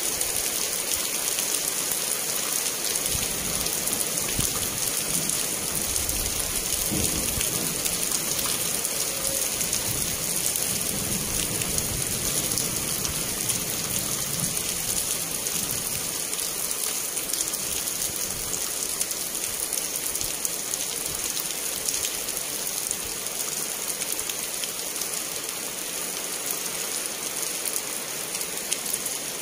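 Steady rain falling on grass and a concrete path, a constant even hiss. A low rumble sits under it through the first half.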